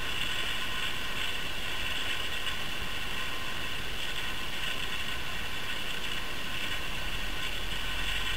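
Steady background hiss and hum with several faint, unchanging high tones: the room tone and recording noise of a quiet living room.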